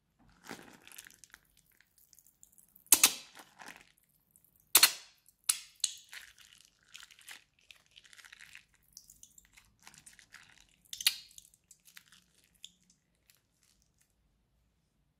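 Slime being squeezed out of a plastic piping bag onto a tray of slime: soft crinkling and squishing, with a few sharp, loud pops, the loudest about three, five and eleven seconds in.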